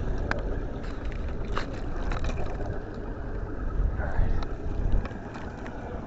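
Steady rumble of wind and rough water around a small trolling boat, with a few sharp clicks and knocks and louder swells about four and five seconds in.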